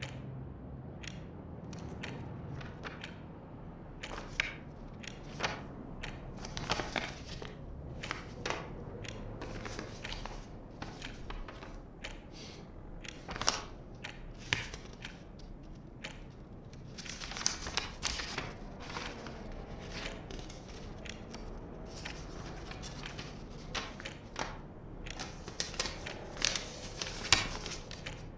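Irregular rustling, crinkling and light clicks and knocks, like paper and small objects being handled in a small room, over a low steady background rumble. The clicks come thicker and louder in two spells, about two thirds of the way in and again near the end.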